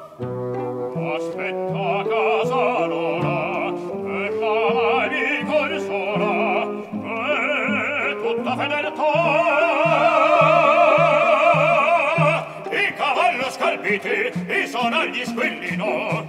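Male opera voices singing with wide vibrato over orchestral accompaniment, growing louder about halfway through.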